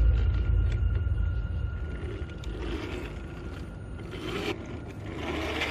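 3D-printed 1/8-scale RC car driving on grass and stone paving: a low rumble in the first second or two, then rough scraping bursts from the tyres and drive that grow louder near the end.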